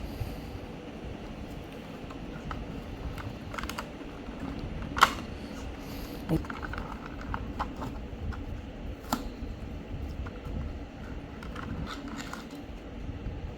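Packaging of a die-cast toy car being handled and opened by hand: scattered light clicks and taps, with a sharper snap about five seconds in and a few more later, over a low steady hum.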